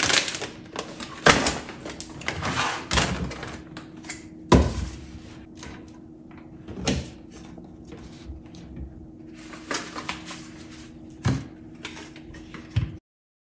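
Plastic packaging crinkling and rustling as a bag of dry puppy food and packs of wipes are handled and set down on a cabinet shelf, with a string of sharp knocks from items and the cabinet. A steady low hum runs underneath, and everything cuts off abruptly near the end.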